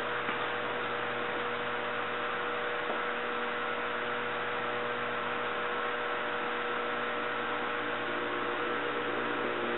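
Oxy-acetylene welding torch flame hissing steadily while a steel patch is gas welded into a car fender, over a steady background hum.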